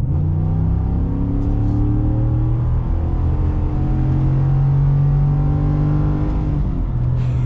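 Ford F-150 RMT Off-Road's 5.0-litre Coyote V8 accelerating: a steady engine note that climbs slowly in pitch and steps down partway through, as at an upshift.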